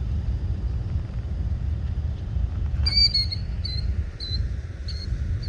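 Killdeer calling near its nest: a run of high, shrill notes starting about three seconds in, roughly two a second, the alarm calls of a bird trying to draw an intruder away from its eggs. Low wind rumble on the microphone underneath.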